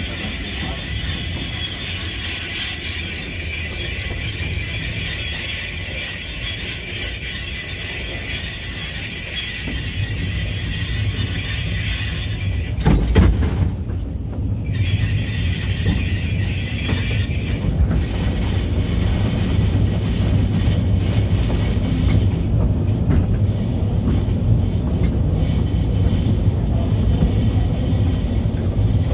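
Kurobe Gorge Railway narrow-gauge passenger car running, its wheels squealing with a steady high pitch over the low rumble of the train. There is a loud knock about thirteen seconds in. The squeal comes back briefly, then stops around eighteen seconds in, leaving only the running rumble.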